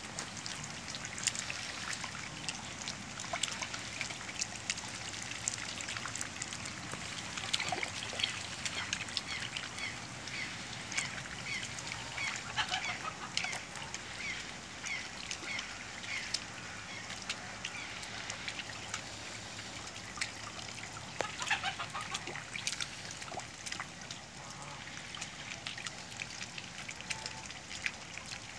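Ducks bathing in a shallow tub of water: steady splashing and dripping from flapping wings, with short duck calls, including a run of evenly repeated calls in the middle.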